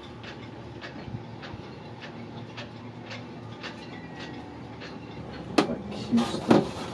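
Faint steady hum with light ticks about twice a second. From about five and a half seconds in, sharp knocks and rustling as bags, clothes and gear are picked up and moved.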